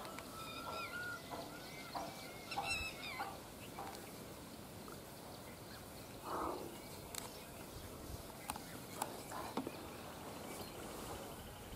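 Birds calling: one drawn-out call at the start and a shorter one near three seconds in. Later come a brief rustle and a few sharp clicks.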